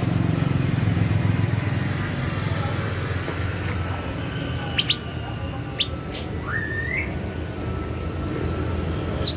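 A caged young bird giving a few short, high chirps, one rising in pitch, spread through the middle and end, over a steady low background rumble.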